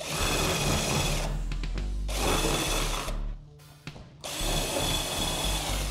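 Small handheld power tool running in three bursts of one to two seconds each, working leftover plastic residue out of the mounting holes in a door panel.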